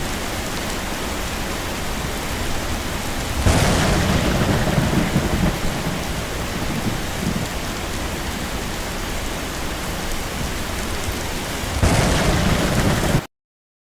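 Heavy rain falling steadily, with thunder rumbling twice: a longer roll about three and a half seconds in and another near the end. The sound cuts off suddenly just before the end.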